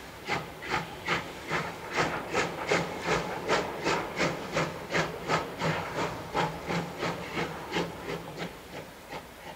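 Pt47 steam locomotive, a two-cylinder 2-8-2, working a train with a steady exhaust beat: evenly spaced chuffs, about two and a half a second, loudest in the middle and fading toward the end.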